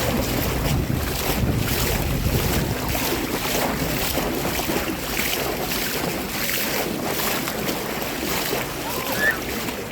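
Sea water washing and splashing in the shallows, with wind rumbling on the microphone, heaviest in the first few seconds.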